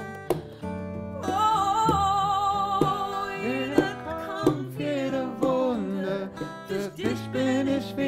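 A woman singing a slow melody in long held notes that waver in pitch, accompanied by acoustic guitar.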